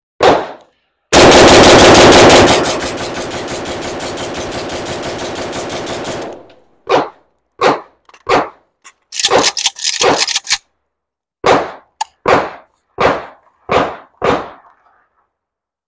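AK-pattern rifle in 7.62×39 firing, very loud: a single shot, then a long rapid burst of about five seconds, then a string of separate shots with a quick flurry of several in the middle.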